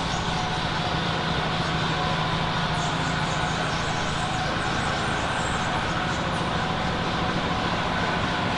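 Steady mechanical drone with a constant low hum and an even rushing noise, unchanging throughout.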